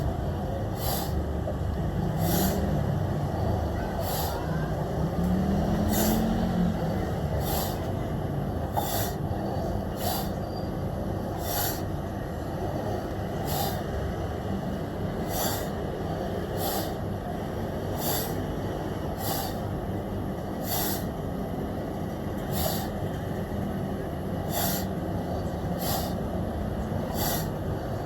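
A person breathing hard through a set of exercise reps, with sharp hissing exhales about once a second over a steady rumbling noise.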